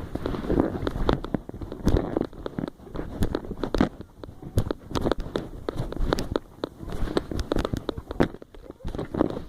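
Footsteps crunching on dry leaves and twigs, an irregular run of crackles and snaps with rustling underneath.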